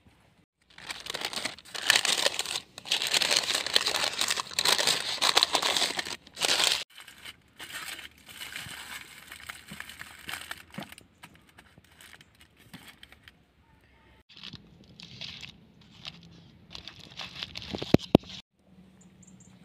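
Aluminium foil crinkling and crumpling as food is wrapped in it by hand. The crinkling is loudest for the first several seconds, then quieter handling rustles on, with a couple of sharp taps near the end.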